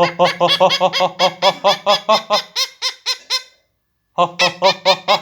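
Pet parrot mimicking laughter, a rapid string of "ho ho ho" calls at about four or five a second, breaking off briefly a few seconds in and starting again.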